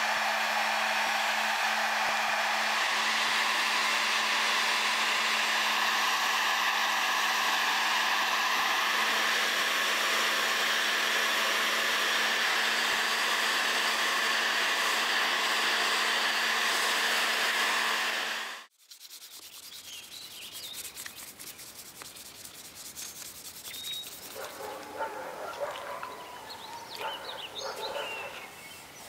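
Dnipro-M electric heat gun running: a steady rush of blown air over a constant low motor hum, cutting off suddenly about two-thirds of the way through. After it, a cloth rubs and scuffs against a wooden knife handle.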